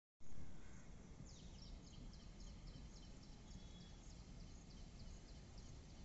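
A small bird chirping quickly and repeatedly, a few high chirps a second, over a faint low rumble of background noise. There is a short low bump at the very start.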